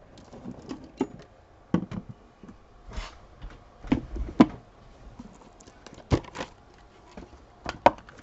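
Irregular knocks, taps and light clatter of a clear plastic canister of paper embellishments being handled and set down on a table, with a dull thud about four seconds in.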